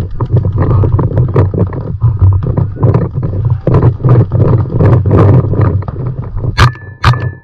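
Loud, pulsing rumble on a body-worn camera's microphone as the player moves. Three sharp cracks come about half a second apart near the end.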